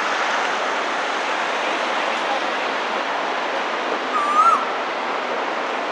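Male Asian koel giving a single swooping call, rising then hooking down, about four seconds in, over a steady hiss of busy-street background noise.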